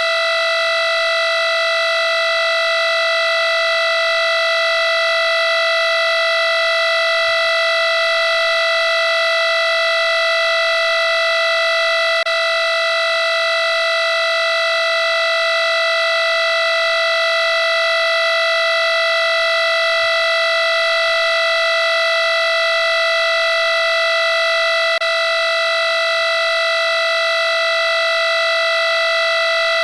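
Electronic alarm clock tone: one loud, unbroken buzzing note at a single fixed pitch, rich in overtones, with no beeping or pauses.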